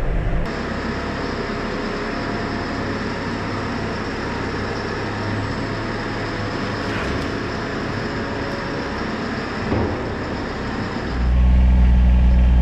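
JCB telehandler's diesel engine running steadily, with a steady high whine, while the machine works its bucket. About eleven seconds in, a louder, deeper engine drone takes over: a farm utility vehicle's engine heard from inside its cab.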